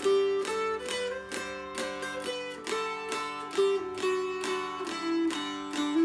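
Newly built mountain dulcimer of poplar and northern cherry with doubled melody strings, strummed in a steady rhythm. A fretted tune moves over a constant drone note.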